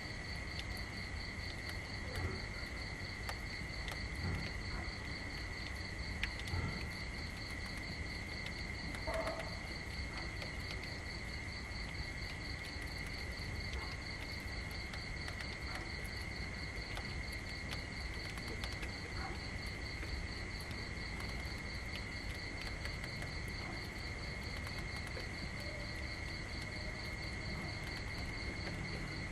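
Crickets calling steadily in the grass: a continuous high trill, with a second, higher, rapidly pulsing note over it, above a low outdoor rumble and a few faint clicks.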